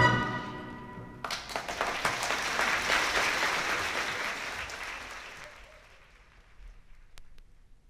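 An audience applauding after a choral gospel song on a live recording. The clapping starts about a second in, swells, then fades away over several seconds. A few faint clicks follow near the end.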